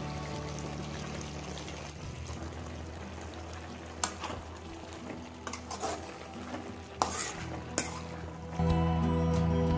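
A spoon stirring cabbage in a metal pan, knocking against the pan a few times over a soft sizzle of frying. Soft instrumental music plays underneath and gets louder near the end.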